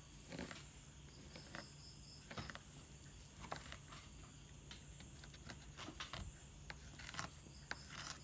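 Knife and fork clicking and scraping faintly against a tray as a grilled steak is cut, over a steady high-pitched insect trill.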